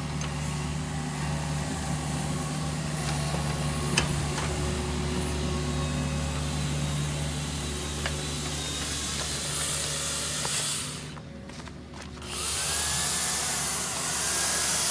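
Digger engine running steadily. Near the end a louder hiss comes in, with a whine that rises and falls.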